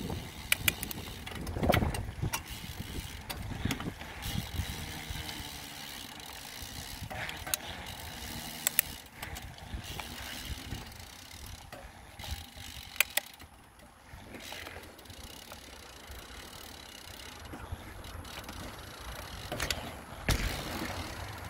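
Mountain bike being ridden on a trail, heard from a handlebar mount: tyre and drivetrain noise with scattered sharp rattles and knocks from the bike over bumps. Heavier low rumble at the start and again near the end.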